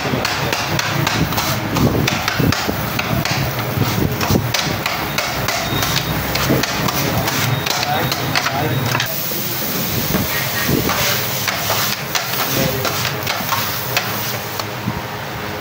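Two metal spatula-choppers repeatedly striking and scraping a steel griddle, chopping grilled chicken: a rapid, irregular clatter of metal on metal.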